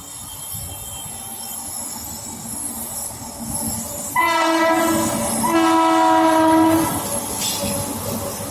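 Indian Railways locomotive horn sounding two blasts, the first about a second long and the second about a second and a half, about four seconds in. Underneath, the rumble of a train on the track grows louder.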